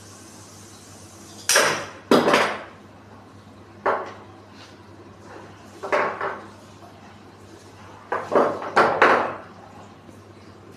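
A series of sharp clacks and knocks from plastic pipe and tools being handled and worked: single hits about a second and a half in, two seconds in, four seconds in and six seconds in, then three in quick succession near the end.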